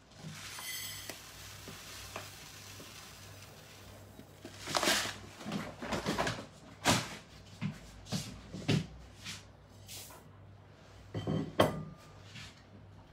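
Kitchen handling sounds: a scattered series of knocks and clatters as containers and utensils are picked up and set down. The loudest knock, near the end, rings briefly.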